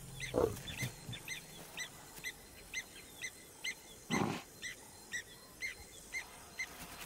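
Two short, low animal grunts, a faint one about half a second in and a louder one about four seconds in, over a run of short high chirps repeating about twice a second.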